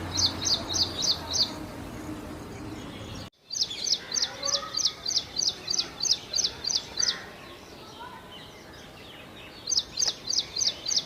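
Ashy prinia singing: rapid runs of sharp, high, repeated notes, about four a second, in three bursts with short pauses between. The sound drops out briefly about a third of the way in.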